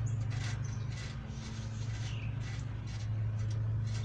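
A steady low hum, with birds chirping now and then, one falling chirp about two seconds in.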